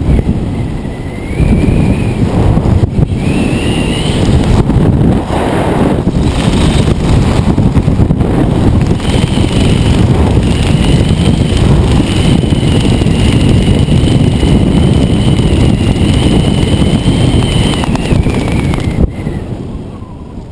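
Wind rushing and buffeting on a helmet camera's microphone under a parachute canopy in flight, with a thin whistle wavering over it and then holding steady. The rush eases off near the end as the canopy touches down.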